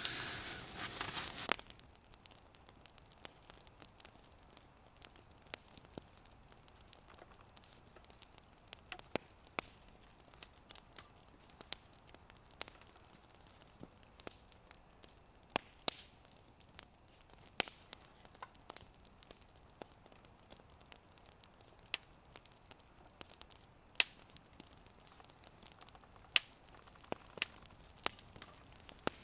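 Mostly quiet, with a short rustle at the start and then faint sharp crackles and clicks every second or two, from a crusty homemade loaf being cut with a knife and broken by hand and from the nearby campfire.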